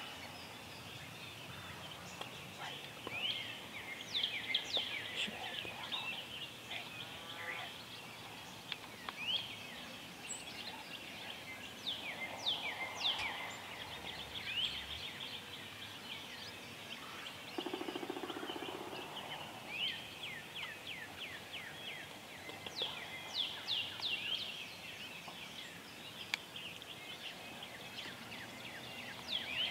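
Songbirds singing in repeated runs of high, down-slurred chirps, while a wild turkey gobbler gobbles twice, about twelve seconds in and again about eighteen seconds in.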